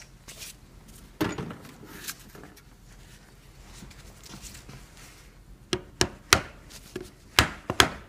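Hammer tapping a screwdriver wedged into a Toyota seat belt buckle held in a vise, driving the plastic part back to free the buckle's trim cover. After a quiet stretch with one soft knock, there are about five sharp taps near the end.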